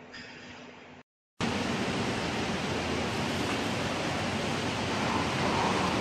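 A faint steady hum, a brief dropout, then a loud steady rushing noise of food-processing machinery running.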